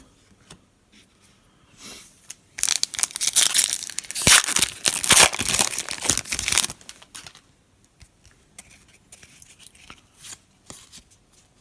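A foil trading-card pack wrapper being torn open and crinkled, loud crackling for about four seconds, followed by faint light clicks of the cards being handled.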